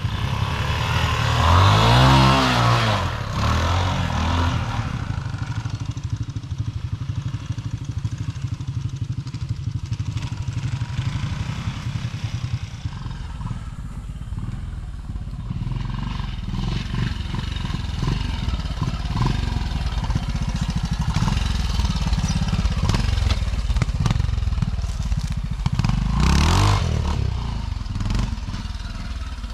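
Twinshock trials motorcycle's single-cylinder engine running at low revs. The throttle is blipped in a quick rise and fall about two seconds in and again near the end.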